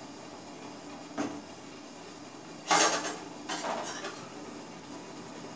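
Stainless steel cookware clattering: a sharp metal clink about a second in, a loud clank near the middle, then a few lighter clinks, as the perforated steel steamer plate and pot are handled and set down.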